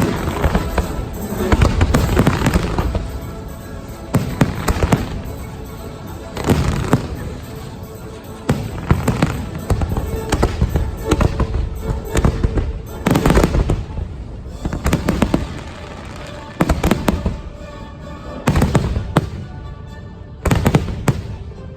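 Fireworks show: shells going off in repeated volleys of sharp bangs every few seconds, over a show soundtrack of patriotic American music.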